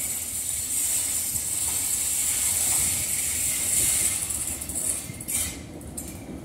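Steam locomotive of DR class 35.10 rolling slowly closer. A steady high steam hiss runs over the low rumble and clank of its running gear, and the hiss stops about five seconds in.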